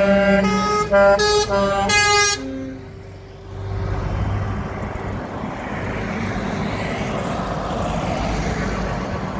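Truck air horns sounding a quick run of short blasts at changing pitches for about two seconds. After a short lull, the engine and tyre noise of heavy trucks driving past.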